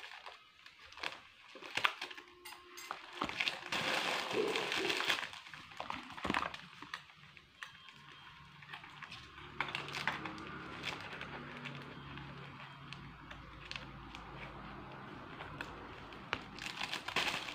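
Rustling and crinkling of plastic packaging and fabric as clothes are unpacked and handled, with scattered clicks and crackles, busiest in the first few seconds. A faint steady low hum runs underneath in the second half.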